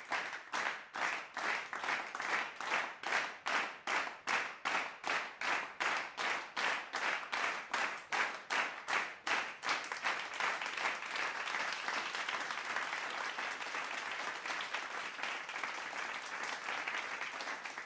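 A crowd clapping in unison, about three claps a second, then breaking into steady applause about ten seconds in.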